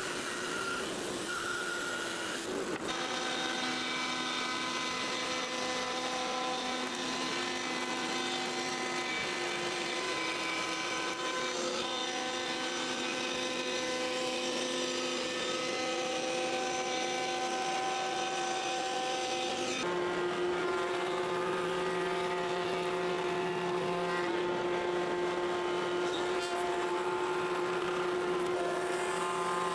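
Woodworking machines running in turn as a hardwood table leg is cut: a bandsaw, then a router table, then a table saw. Each is a steady whine, and the sound changes abruptly about 3 s in and again about two-thirds of the way through.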